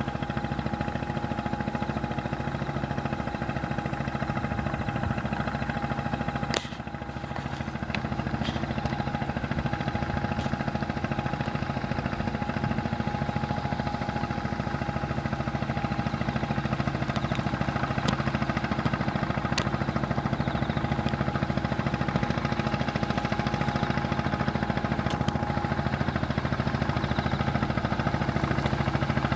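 Boat engine running steadily at a low, even speed, with a brief dip and a click about six and a half seconds in and a few light clicks later.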